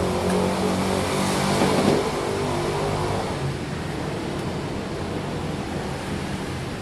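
A vehicle engine running steadily, swelling louder for a moment about a second in and settling back after about three seconds, as if briefly revved.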